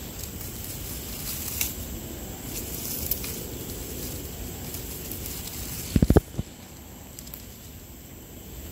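Wood cooking fire: a steady low rumble and hiss with a few scattered crackles. About six seconds in comes a quick run of three or four loud knocks.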